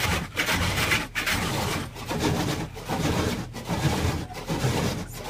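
Automatic car wash equipment working over the car, heard from inside it: a loud rubbing, swishing noise that dips briefly about every 0.8 s.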